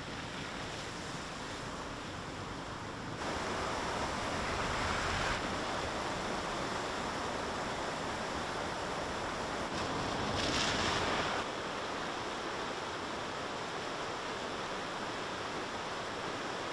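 Rushing floodwater from rain-swollen streams: a steady rush of fast water, with torrents and drain outfalls pouring into a swollen river. The sound jumps in level about three seconds in and again past the middle.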